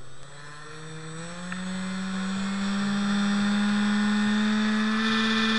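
Small brushless outrunner motor spinning up under its ESC: a whine that rises in pitch and grows louder over the first two to three seconds, then holds steady. The motor is still out of balance and vibrating.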